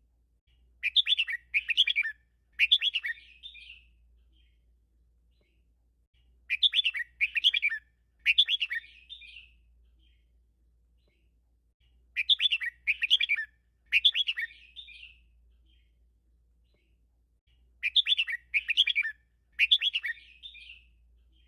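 Red-whiskered bulbul singing: a short, bright three-note phrase with a trailing flourish, repeated four times about every six seconds, with quiet between phrases.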